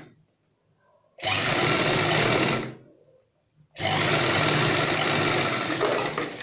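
Chauhan straight-stitch sewing machine running in short runs while stitching cotton fabric: one run just ending at the start, another from about a second in lasting about a second and a half, and a longer one from about four seconds in lasting about two seconds, each starting and stopping abruptly.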